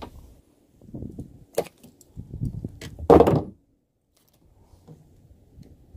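Handling noise on a plastic kayak: irregular knocks and rustles as fishing line is pulled in by hand to land a small fish. There is a sharp click about a second and a half in, and the loudest thump about three seconds in. The sound cuts off suddenly for about a second just after that.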